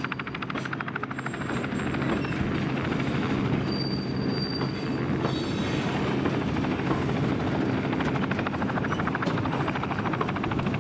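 Diesel-electric freight locomotive engine running with a steady low throb and a fast, even pulsing beat, with a faint high wavering whine above it.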